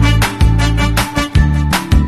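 Upbeat background music with a steady drum beat and a heavy bass line.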